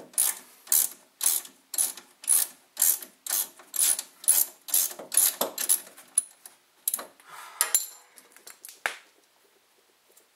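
A ratchet clicking in regular strokes, about two a second, as the 12 mm bolt holding the brake line bracket to the front strut is backed out. The strokes weaken after about six seconds into a few scattered clicks, then stop.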